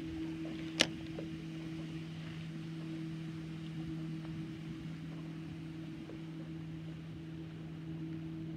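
Steady low hum of a boat motor, with one sharp click about a second in.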